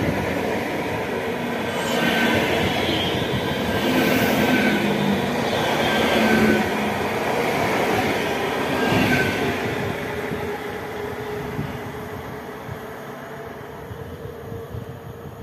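A České dráhy electric multiple unit running along the platform track, its wheels rumbling on the rails with a swell every two seconds or so as the bogies pass. It fades steadily over the last few seconds as the train draws away.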